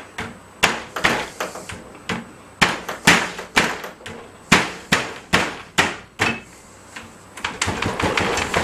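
Repeated sharp knocks and bangs on a clamped HDMI cable and its test rig as someone tries to break the cable: about a dozen irregular strikes, the hardest about three and four and a half seconds in.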